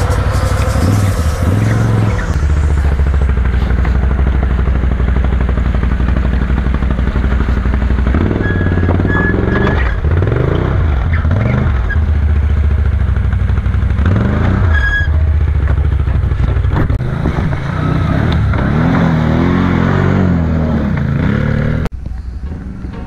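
Can-Am Renegade ATV engine revving up and down in repeated bursts under load as it crawls over rocks through a stream gully. The sound drops abruptly a second before the end.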